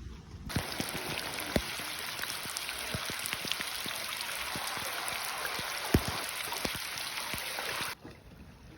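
Heavy rain pelting down: a dense hiss with many sharp drop hits close by, two of them louder, about 1.5 and 6 seconds in. It starts suddenly about half a second in and cuts off suddenly near the end.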